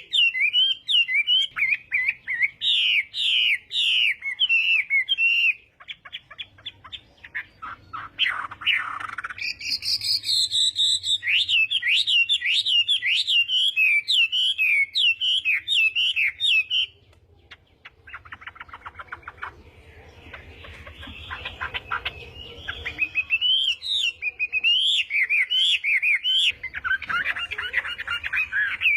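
Chinese hwamei (melodious laughingthrush) singing a loud, varied song of quick whistled phrases. Twice the phrases give way to runs of fast rattling notes.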